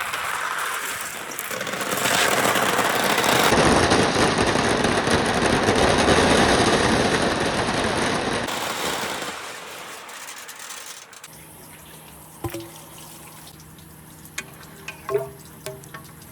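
Water and a mass of glass marbles rushing down a wooden rain-gutter slope, a loud gush that swells for several seconds, then dies away about ten seconds in. After that come scattered clicks and clinks of marbles settling.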